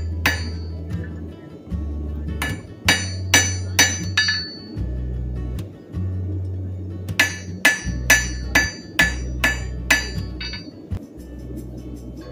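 Blacksmith's hammer striking metal on an anvil: sharp ringing blows in short runs, about two a second, with pauses between runs. Background music with a steady bass line plays underneath.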